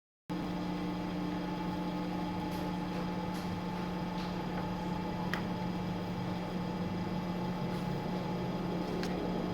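Steady electric hum of a paper cutting machine's motor running, holding a constant pitch, with a few faint ticks. It begins abruptly a fraction of a second in.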